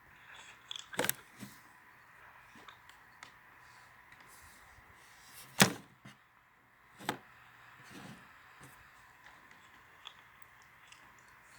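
A few scattered sharp knocks and clicks, the loudest about five and a half seconds in, over a faint steady hum.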